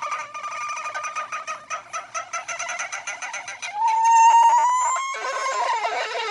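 Cartoon sound effect of a fowl-like call: a fast stuttering clucking, then a louder held squawk about four seconds in, ending in a noisy wash.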